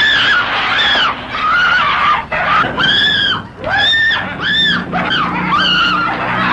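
A person screaming over and over: loud, high-pitched shrieks that each rise and fall in pitch, with a low steady drone coming in under them about halfway through.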